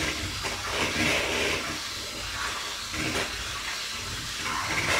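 Electric hand mixer running at high speed, its beaters whirring through chocolate cake batter. The sound swells every two seconds or so as the beaters are moved around the bowl.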